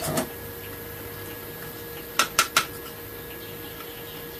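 A click, then three quick light knocks and clinks about two seconds in, as hand tools and the wooden plane parts are handled on the workbench, over a faint steady hum.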